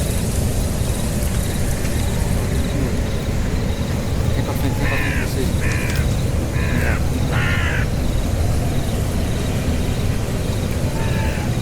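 Four short, harsh bird-like calls about half a second each, coming quickly one after another, with a fainter fifth call near the end, over a steady low rumble of noise.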